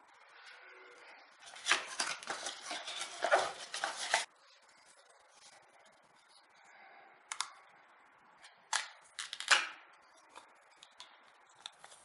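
Unpacking an Intel Core i5 processor: a dense run of rustling and crackling from the cardboard box and clear plastic tray for about two and a half seconds. Then a few sharp plastic clicks and snaps as the clamshell is handled and prised open.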